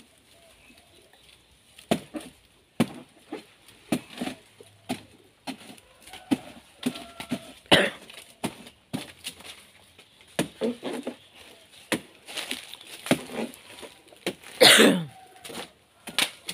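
Irregular knocks, scrapes and rustles of a barefoot climber gripping a banana trunk and stepping up the footholds cut into it, brushing dry banana leaves, with one longer, louder burst near the end.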